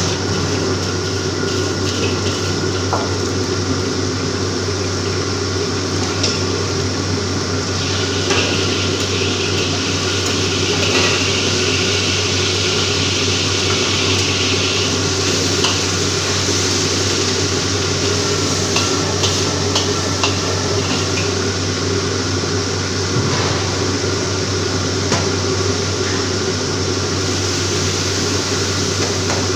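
Stir-frying in a wok over a gas wok burner: the burner and extractor hood run with a steady hum while food sizzles in the wok, loudest from about 8 to 15 seconds in. A metal ladle scrapes and knocks against the steel wok now and then.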